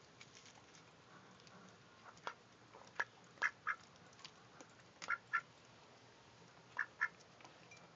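Domestic duck giving short, quiet quacks, several of them in quick pairs.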